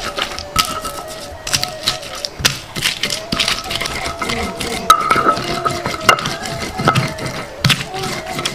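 Stone pestle crushing and grinding shallots, turmeric and candlenuts on a flat stone grinding slab (batu giling): irregular scraping knocks and crunches as the spices are worked into a paste. Soft background music plays underneath.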